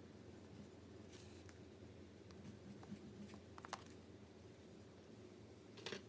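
Near silence, with a few faint, short scratches of a drawing tool on paper; the loudest comes near the end.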